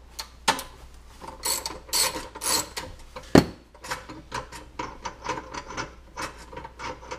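Socket ratchet with an extension clicking in short runs as it turns out a gas-tank bolt on a small engine, with one sharp metal knock about three and a half seconds in.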